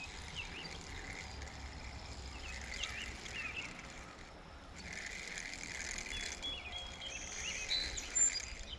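Spinning fishing reel being cranked as a jointed Rapala lure is retrieved, a light mechanical ratcheting whir, with a sharp click near the end.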